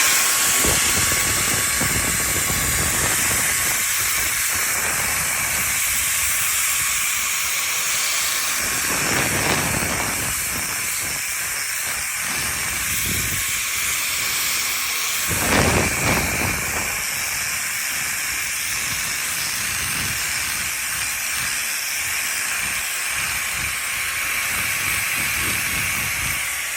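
Power tool spinning a Manpa sanding spindle at speed, a steady high whine over the hiss of the abrasive sanding rotten wood on a root. It bites in harder twice, about a third of the way in and again just past halfway, and the whine starts to wind down at the very end.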